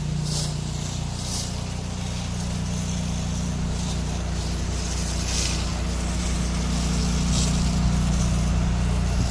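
The engine of a soft-washing rig runs steadily as it drives the spray, a low even drone that grows a little louder toward the end. Brief hisses rise over it a few times.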